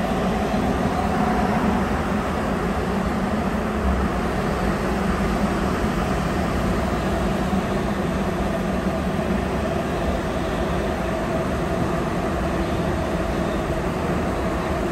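Rubber-tyred Sapporo Subway Toho Line train heard from inside the car, running steadily through the tunnel: a constant low rumble with a steady hum over it.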